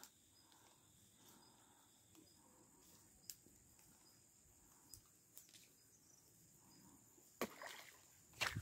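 Near silence with a few faint clicks, then about seven seconds in a sudden short splash as a traíra strikes the surface frog lure on the pond.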